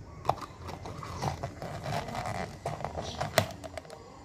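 Clear plastic dome lid being pressed down onto a plastic cup: crinkling and creaking plastic, with sharp clicks as the rim snaps on, the loudest near the end.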